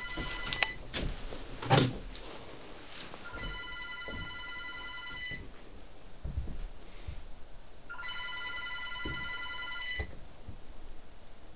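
Rotary-dial telephone ringing in rings of about two seconds with pauses of about two and a half seconds between them: two full rings, after the tail of one at the start. In the first few seconds there are knocks and a heavier thump.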